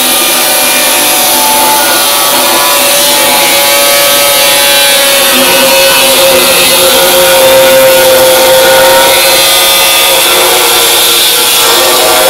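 Corded angle grinder with a cutting disc slicing through the steel body mounts on a van chassis rail: a loud, steady high whine over a harsh hiss of grinding, the pitch sagging slightly under load around the middle.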